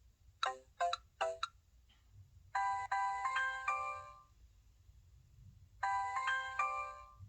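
SK-900 mobile phone alert tones: three quick electronic blips, then a short bright melodic jingle that plays twice, a few seconds apart.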